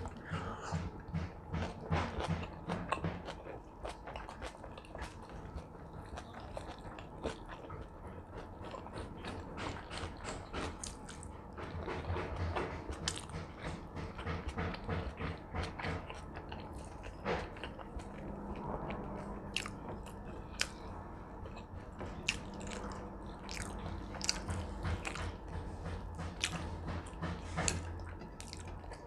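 A person chewing and biting food close to the microphone, with many short wet mouth clicks, over a steady low hum.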